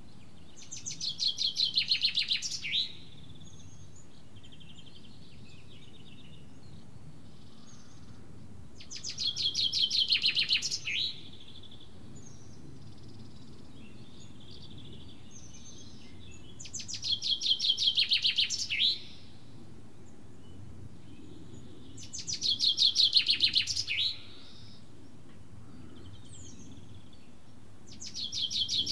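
A songbird repeating the same short song phrase, a fast run of notes that grows louder and ends abruptly, about every six to seven seconds: four times, with a fifth starting near the end. Faint chirps fall between the phrases, over a steady low background rumble.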